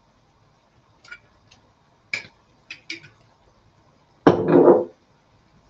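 A spoon clinking against a jar of tomato paste and the pan a few times as the paste is scooped out, then a louder clatter of the utensil about four seconds in.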